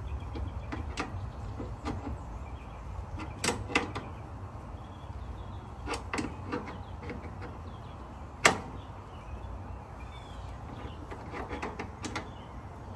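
Wrenches clicking and knocking on the line-set nut of a mini-split air conditioner as it is tightened: a scattering of sharp metal clicks, the loudest about eight and a half seconds in, over a steady low rumble.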